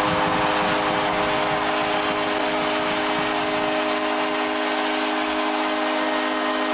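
Arena goal horn sounding one long, unbroken blast over a cheering crowd, signalling a home-team goal.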